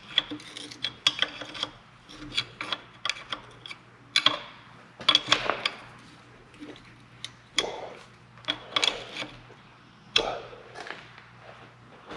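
Hand tools clicking, tapping and scraping on metal in irregular bursts while a broken needle seat valve fitting is worked out of the part.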